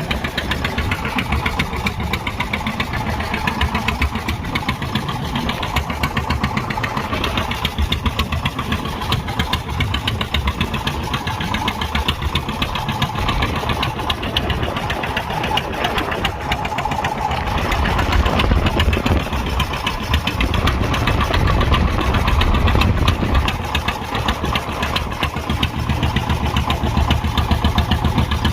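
Fishing boat's engine running steadily, with a rapid even firing beat; the low rumble swells for several seconds past the middle, then eases.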